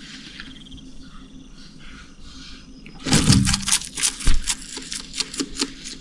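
Bearded dragon eating a dragonfly: a quick run of crisp crackles and clicks that starts about three seconds in, with a low thump at the start and another about a second later.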